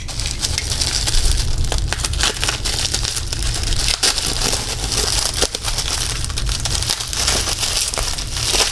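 Packaging being handled and opened: a continuous run of crackling and crinkling with many small clicks.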